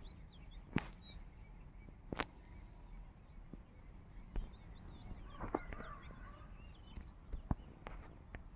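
Faint birdsong: a quick run of short high chirps about four seconds in, followed by lower chirping, with a few sharp clicks scattered through.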